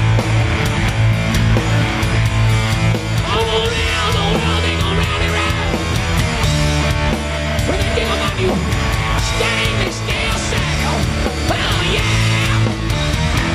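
Loud hard rock music from a full band, with a steady, driving drum beat.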